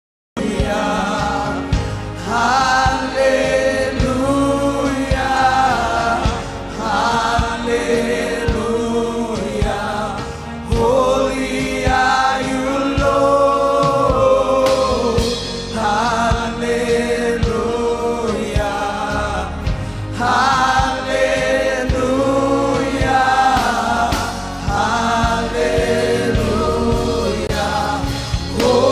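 Gospel worship music: a choir of voices singing in phrases several seconds long, over a steady instrumental accompaniment.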